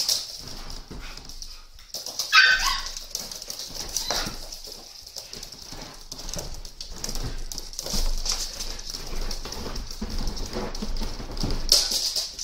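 Husky puppies and their mother scampering on a wooden floor, claws clicking and skittering in quick irregular patters. About two seconds in, a puppy gives a short high yelp that falls in pitch.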